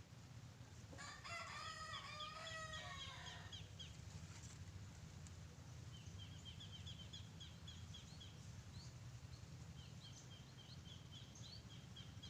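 A rooster crowing once, about a second in, lasting about two and a half seconds. Later come two runs of quick, high, repeated chirps from a small bird.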